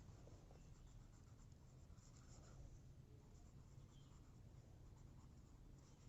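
Near silence with faint scratching of writing by hand.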